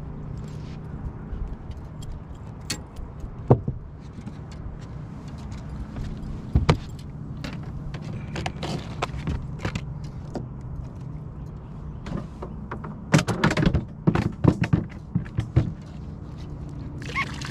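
Scattered knocks, clicks and rattles of a caught white bass and fishing gear being handled on a boat, with a quick run of knocks about 13 seconds in, over a steady low hum.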